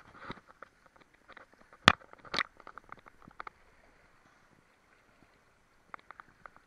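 Lake water lapping and sloshing at the surface, heard through a waterproof camera at the waterline, with a string of small clicks and splashes. There is a sharp knock about two seconds in and a second one half a second later.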